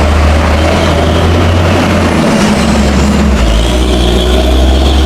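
Heavy truck passing close by: a steady, loud low diesel drone over road noise.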